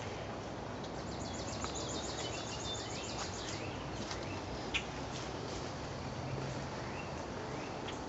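Outdoor background noise with small birds chirping: several short rising chirps and a fast trill about a second in. A single light tap just before five seconds in.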